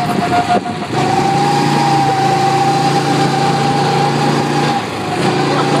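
Go-kart's small engine running steadily under way, with a steady high whine over its drone; it eases off briefly under a second in and again near the end.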